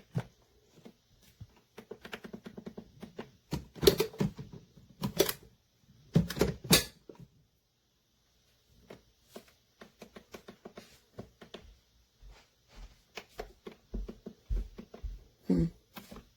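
Irregular clicks and taps from pressing buttons on a Cuisinart SS-16 coffee maker's control panel, with a few louder knocks among them; the single-serve brew button is not responding, a sign the K-cup side of the machine has failed.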